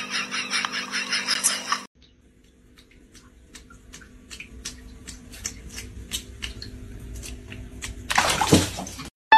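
A live fish in a plastic bucket of water, with light scattered splashes and ticks as a cat paws at it. Near the end the fish thrashes in a loud splash lasting about a second.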